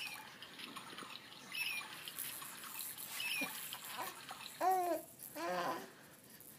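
Baby cooing and babbling in a few short rising-and-falling sounds, the loudest two near the end.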